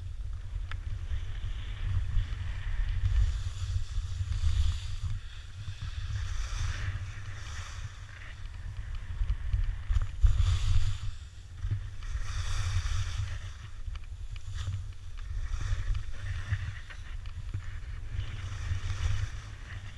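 Skis carving on packed snow, a hissing scrape that swells and fades every second or two as the skier turns, over a steady wind rumble on the action camera's microphone from skiing downhill.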